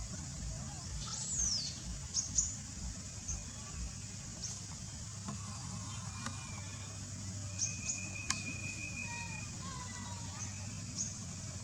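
Small birds chirping: scattered short high chirps, one quick falling note about a second and a half in, and a short, evenly pulsed trill after the middle, over a steady low rumble.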